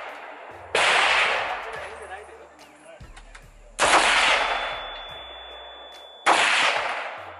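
Three single rifle shots from an AR-15, each a sharp crack followed by a long echo that fades over about two seconds; the shots come roughly three and two and a half seconds apart, slow aimed fire.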